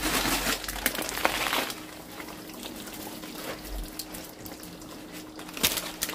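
Cooking hiss from a pot of chicken roast curry on a gas stove, steady and louder for the first couple of seconds, with a few light clicks near the end.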